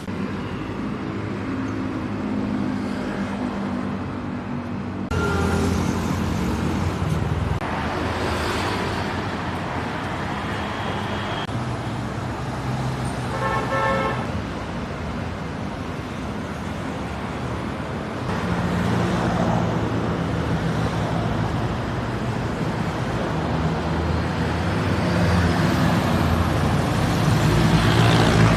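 Road traffic: vehicle engines running with tyre and road noise, and a short horn toot about halfway through.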